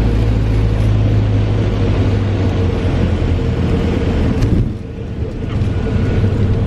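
Light single-engine piston plane's engine and propeller running at high power during the takeoff roll, a steady drone heard inside the cockpit. The loudness dips briefly about five seconds in.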